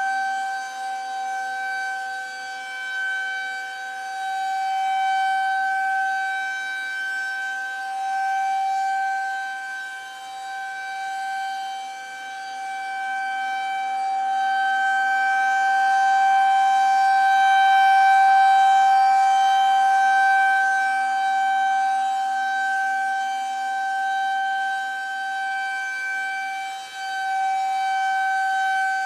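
Federal Signal 2001-130 rotating electromechanical outdoor warning siren sounding a steady single tone for a tornado-drill test activation. Its loudness swells and fades as the horn turns, loudest about two-thirds of the way through.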